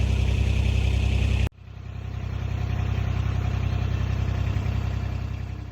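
Vehicle engine running steadily. It drops out suddenly about a second and a half in, comes back up within a second, runs steadily again and fades away near the end.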